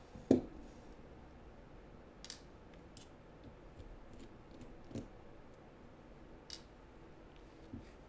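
A sharp knock about a third of a second in, then scattered small metallic clicks and taps as a Phillips screwdriver works a screw on the back of a lock cylinder and the cylinder is handled on a desk.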